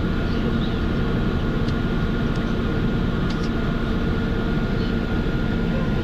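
Steady running drone of a moving vehicle heard from inside it: a low rumble with a faint, even whine over it.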